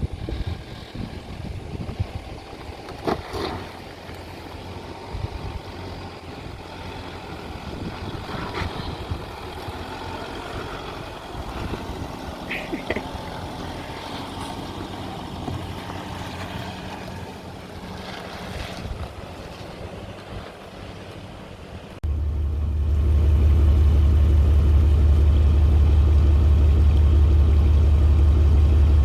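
Four-wheel-drive vehicle's engine running among outdoor noise, with a few clicks. About three-quarters of the way through it switches abruptly to a loud, steady, low engine drone heard close up.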